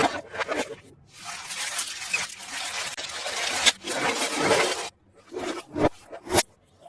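Toy packaging handled in an unboxing: a few seconds of scraping and rustling, then two sharp clicks near the end.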